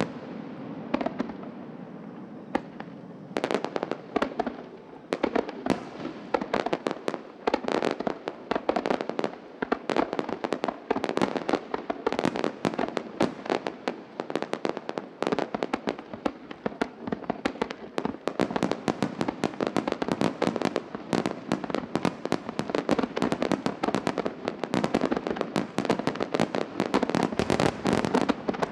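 Starmine fireworks barrage: aerial shells bursting in rapid, dense succession, thickening into an almost continuous string of bursts after a few seconds.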